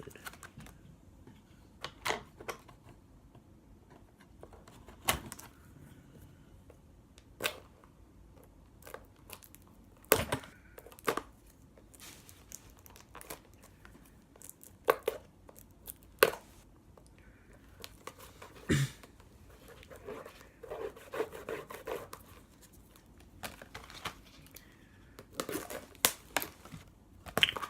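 A Panini Prism football trading card box being torn open by hand: its wrapper and cardboard tearing and crinkling, with scattered sharp snaps and short pauses between them.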